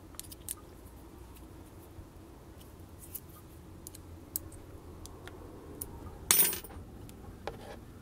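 Small clicks and light metallic taps from handling an aluminium cutter-holder bracket and turning its small screw with a hex key. One louder clatter comes a little after six seconds.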